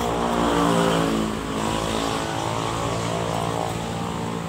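A motor vehicle engine running close by. It is loudest in the first second and dips in pitch, as a vehicle passing does, then runs on at a steady pitch.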